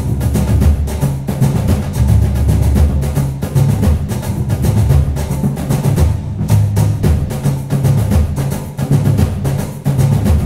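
Background music with a steady, percussion-led beat and a heavy bass line.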